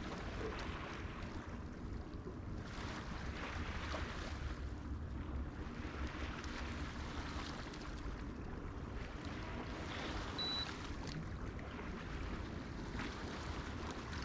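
Ambient noise aboard a small boat on open water, picked up by a boat-mounted camera: a steady low rumble under wind and water noise that swells and fades every couple of seconds.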